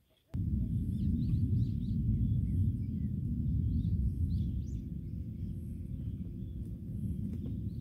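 Small birds chirping over a steady low rumble, which starts suddenly under a second in and is the loudest sound.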